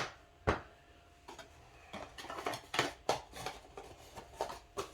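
Small hard parts being packed back into a box on a workbench: a sharp click at the start, another about half a second in, then a run of lighter clicks and taps.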